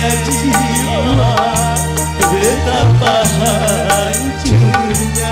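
Live dangdut band playing an instrumental passage: kendang hand drums and a cymbal tapping a steady beat over a bass line, with a wavering lead melody.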